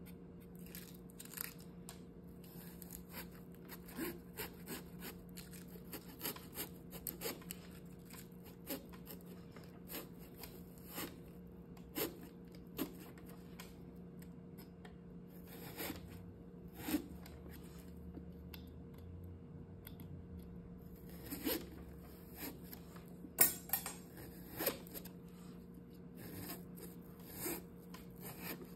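Small knife sawing and stabbing through a pumpkin's hard rind around the stem to cut out the lid: irregular crisp crunching and scraping strokes, over a faint steady hum.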